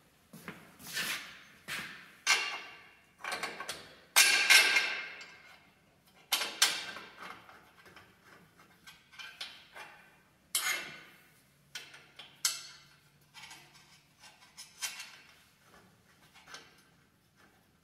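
Irregular metal-on-metal clinks and knocks, each ringing briefly, as hand tools and bolts are worked against a steel suspension bracket on a solid rear axle; the loudest knocks come about four to seven seconds in, and they grow fainter towards the end.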